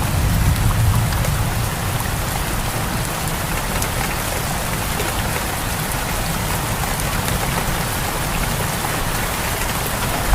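Steady heavy rain falling, with the tail of a low thunder rumble fading in the first second or two.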